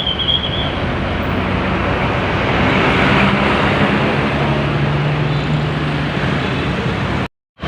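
Road traffic with a heavy vehicle's engine passing close, the rush of tyres and engine swelling about three seconds in and easing after. The sound cuts out for a moment near the end.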